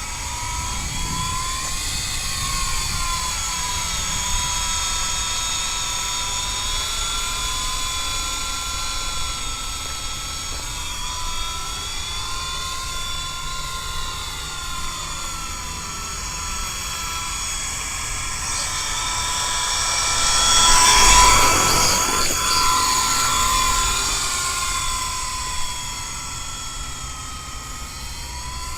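Small electric RC helicopter (MJX F45) in flight: a high motor-and-rotor whine that wavers up and down in pitch as it manoeuvres, swelling loudest as it passes close about two-thirds of the way through. Wind rumbles on the microphone underneath.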